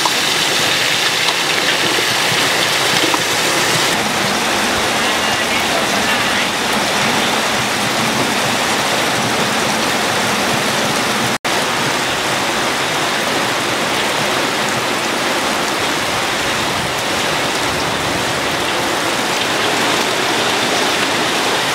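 Heavy rain pouring down in a steady, dense downpour, broken once by a split-second gap about halfway through.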